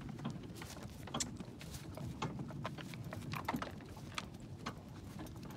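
A draft horse walking in harness and pulling a cart on a soft dirt track: hoofbeats, plus irregular clicks and knocks from the cart and harness over a low rumble as it rolls.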